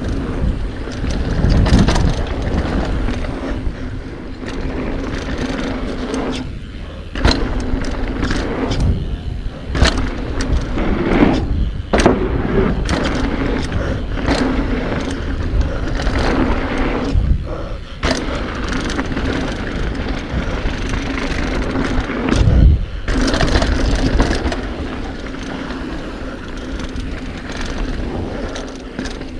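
Mountain bike rolling fast down a dirt bike-park trail: continuous rough tyre and rattling noise, with a few short lulls each broken by a sharp knock.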